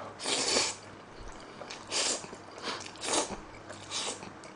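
Slurping jjajangmyeon noodles close to a microphone: one long slurp near the start, then about four shorter slurps.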